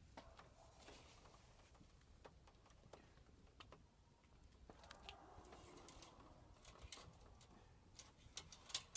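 Near silence with scattered faint clicks and light taps from hands handling parts in a truck's engine bay. The clicks come more often near the end.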